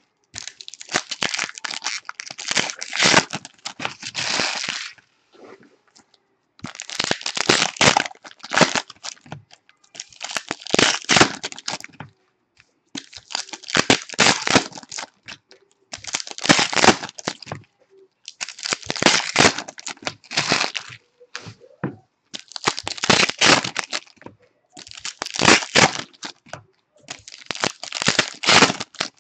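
Plastic and foil trading-card pack wrappers crinkling and tearing as they are opened by hand, in repeated bursts every two to three seconds.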